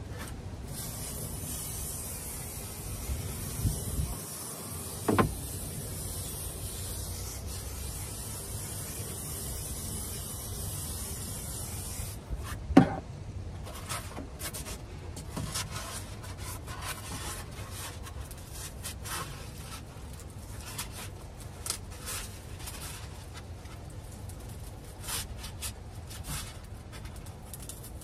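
Aerosol spray can hissing steadily for about eleven seconds, then white foam insulation board being handled and pressed into place, with scraping and rubbing of foam and a sharp knock just before the handling starts.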